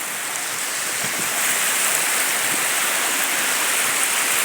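Ocean waves breaking and washing on the beach: a steady hiss of surf that grows slightly louder about a second in.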